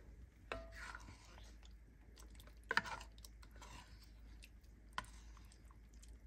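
A ladle knocking against a pot and scooping up sauce. There is a clink with a short ring about half a second in, a louder one just under three seconds in, and a light tap around five seconds.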